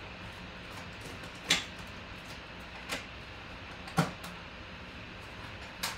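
Objects handled on a tabletop: four separate sharp clicks and knocks a second or so apart, over a steady low hum.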